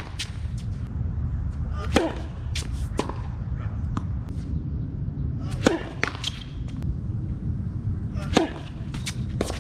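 A tennis rally: rackets strike the ball with sharp cracks about every three seconds, with softer ball bounces between the hits. A steady low rumble runs underneath.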